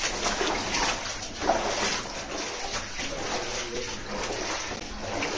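Footsteps scuffing and splashing on the wet floor of a narrow mine tunnel, irregular, with one sharper step about a second and a half in.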